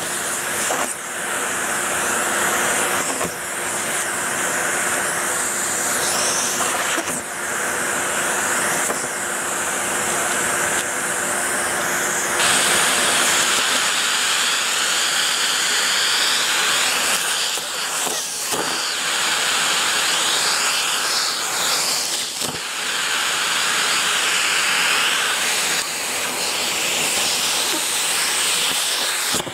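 Numatic Henry vacuum cleaner running steadily, sucking dry leaves up off a carpet, with a few short clicks; its hiss changes in tone about twelve seconds in.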